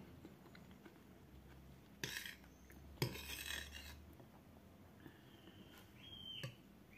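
Metal spoon scraping against a plate, twice around two and three seconds in, the second scrape lasting about a second, then a fainter scrape with a light ring near the end.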